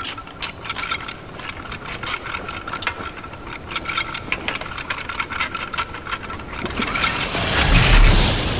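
Mechanical clicking and ratcheting of a small animated robot's moving parts, irregular clicks over a faint steady whine. About seven seconds in, a whoosh swells up with a deep low rumble and peaks near the end.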